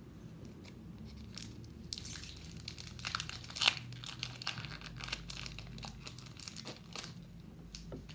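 Pokémon booster pack's foil wrapper being torn open and crinkled by hand: a run of crackles and rustles, with one sharp crackle about halfway through.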